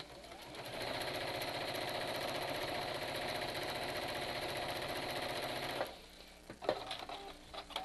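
Domestic sewing machine stitching a seam through cloth at a steady, fast pace. It gets going over the first second and stops about six seconds in, followed by a few small handling clicks.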